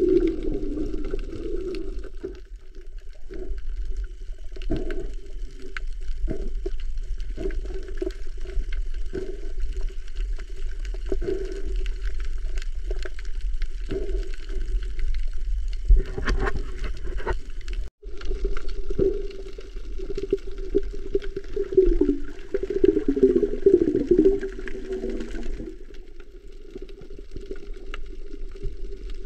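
Muffled underwater sound picked up by a camera in a waterproof housing. There is a constant low water rumble with scattered clicks and knocks, and a burst of gurgling, warbling bubble sound a little past the middle.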